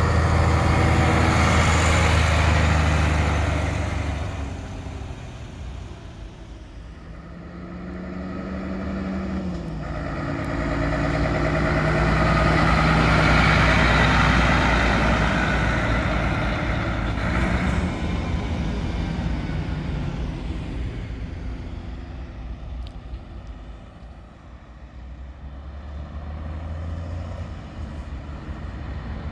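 Classic diesel lorries driving past one after another, each engine note swelling as it nears and fading as it goes. The loudest pass comes about halfway through, with a quieter one near the end.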